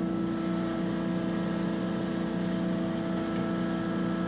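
Cazeneuve HB725 engine lathe running under power with its chuck spinning. It gives a steady hum with several fixed tones that hold at one pitch throughout.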